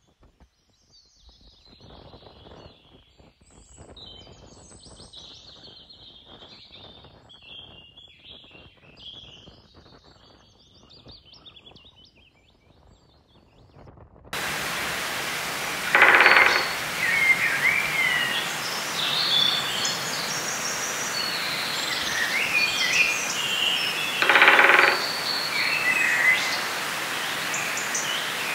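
Birds chirping, faint at first. About halfway in, a steady rushing outdoor noise cuts in abruptly, with louder birdsong over it and two louder calls about eight seconds apart.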